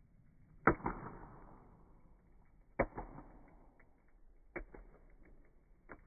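Campfire wood crackling in a metal fire basket, heard slowed down: four sharp pops about two seconds apart, the loudest about a second in, the last and faintest near the end, over a faint low hiss of the fire.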